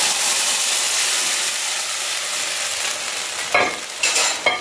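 Kadhi batter of yogurt and gram flour being poured into a hot iron kadai, setting off a loud sizzle that slowly dies down. A few short scrapes of the ladle come near the end.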